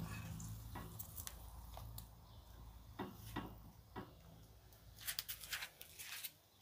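Metal tongs handling a steak in a ceramic dish of cooking juices: scattered soft clicks of metal on ceramic and wet squishes of the meat, coming quicker near the end. A low steady hum sits under the first half.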